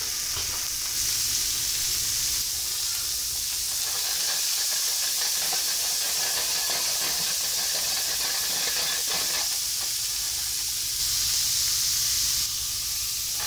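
Chopped onions and peppers sizzling in a hot frying pan with a steady hiss. It gets slightly louder briefly near the end.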